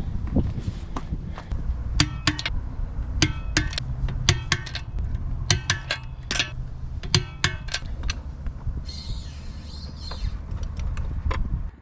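Metal parts clinking and tapping, separate sharp ringing clicks of wheel hardware and tools being handled, over a steady low hum, with a brief hiss about nine seconds in.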